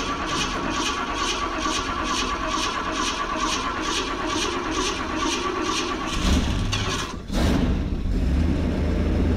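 Ford 460 big-block V8 running at idle, cold and warming up, with a regular light ticking about two or three times a second. After a brief drop about seven seconds in, it runs louder and deeper.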